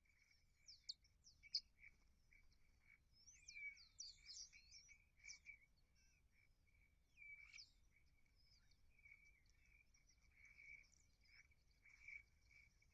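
Faint chatter of many small birds: a busy scatter of short chirps and quick whistled sweeps, a few louder ones standing out about one and a half seconds and four seconds in.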